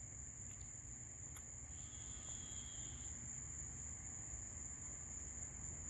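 Crickets trilling at night: one steady, unbroken high-pitched trill, with a second, lower trill joining briefly about two seconds in.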